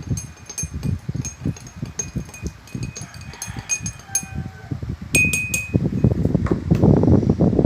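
A spoon clinking against a glass again and again as sugar is stirred into the hot drink, some strikes leaving a short ring; the strongest clink comes about five seconds in. A low rumbling noise builds through the second half.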